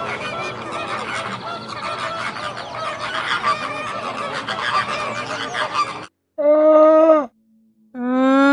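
A flock of large birds honking and calling all at once. After a sudden cut, two loud, drawn-out honking calls, each about a second long, follow one another.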